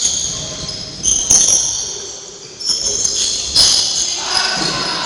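Basketball play in a gym hall: a series of sharp impacts, about five, each with a high ringing echo that dies away over about a second.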